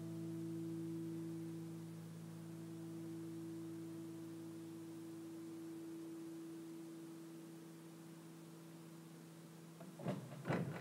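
A sustained musical drone of several steady low tones over faint hiss, slowly fading, its higher tones dropping out about halfway through. Two short, harsh noise bursts come near the end.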